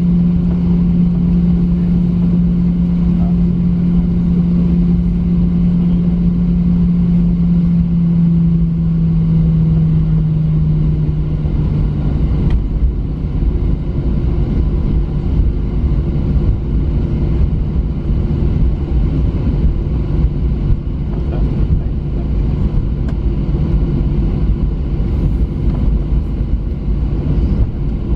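Cabin noise of a Boeing 737-900 taxiing, heard from a window seat over the wing: its CFM56-7B jet engines run at taxi idle under a steady rumble. A low hum drops slightly in pitch and fades about ten to twelve seconds in.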